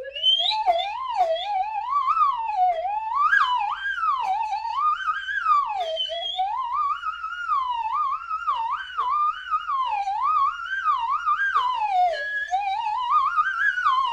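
Slide whistle played in a continuous, erratic run of pitch swoops, gliding up and down without a break, with quick short dips between the glides.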